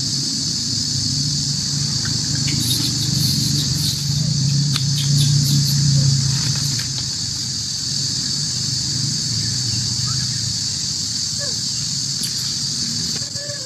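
Steady, high-pitched insect chorus over a low steady hum, with a few faint clicks between about three and seven seconds in.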